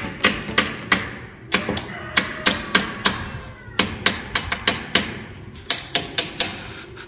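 Hammer tapping a nail into a wall: about twenty short, sharp strikes in quick runs, two to four a second, with brief pauses between the runs.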